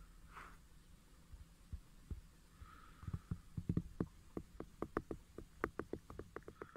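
A run of faint, short clicks and soft knocks, sparse at first and then coming about four a second in the second half.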